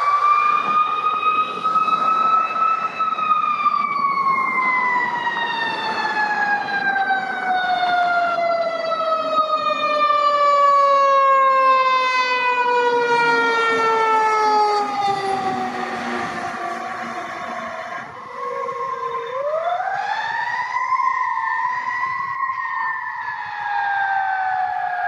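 Fire engine siren wailing, rising at first and then gliding slowly down in pitch for about fifteen seconds. Near the end it rises again and starts a second slow fall.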